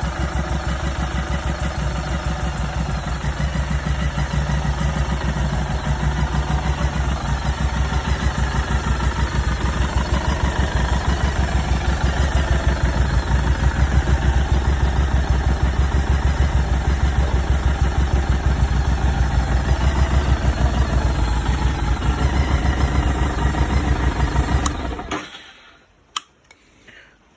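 Harley-Davidson Street 500's V-twin engine idling with an even pulse, then switched off about 25 seconds in; a single click follows.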